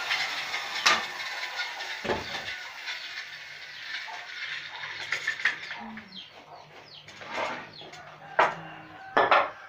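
Electric handheld circular saw winding down after a cut, its whine falling away, followed by knocks of wood and the saw being handled, the loudest two near the end as it is set down on the sawhorse.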